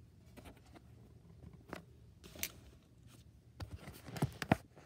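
Quiet handling noise: a few scattered light clicks and taps, then a quick cluster of sharper ticks near the end, as small 1/64-scale diecast model trucks are handled on a hard display surface and the camera is moved.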